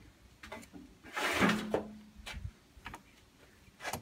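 Clicks and knocks of hands handling and adjusting the plastic grinder head of an electric bench-mount chainsaw sharpener, with a louder brief rush of noise and a short low hum about a second in and a sharp knock near the end.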